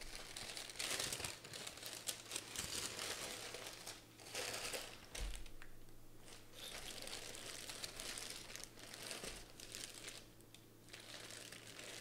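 Tissue paper and clear plastic boot wrapping crinkling and rustling in repeated bursts, with short lulls, as a pair of cowboy boots is unpacked from its box.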